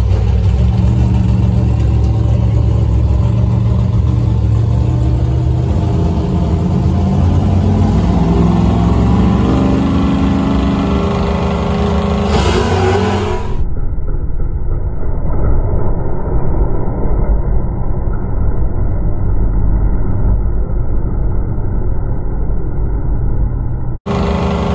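Drag-race car engines running loud at the strip, revving with their pitch rising about halfway through. The sound then turns abruptly duller and more muffled, and briefly cuts out near the end.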